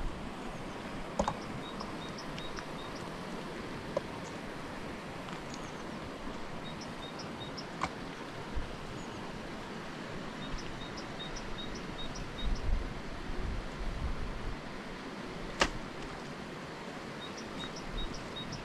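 Outdoor background noise with several short runs of high, evenly spaced chirps and a few scattered sharp knocks, the loudest knock about three-quarters of the way through.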